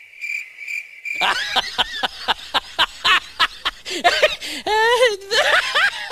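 Crickets chirping, the stock comic cue for an awkward silence, cut off about a second in by a long burst of laughter. Quick, rapid 'ha-ha' pulses give way to longer wavering laughs near the end.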